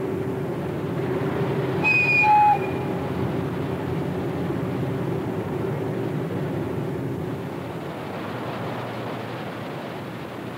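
Tugboat diesel engine running with a steady drone. About two seconds in, a short high whistle sounds once.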